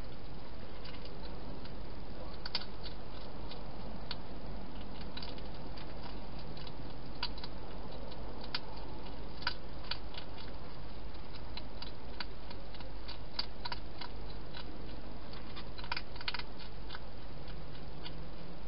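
Wild hedgehog eating from a dish inside a plastic feeding box: irregular small clicks of chewing, in loose clusters, over a steady hiss and low hum.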